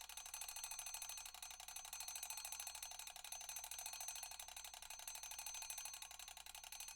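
Mechanical analog alarm clock ringing: its hammer strikes the bell in a rapid, even rattle, many strikes a second, with a metallic ringing tone.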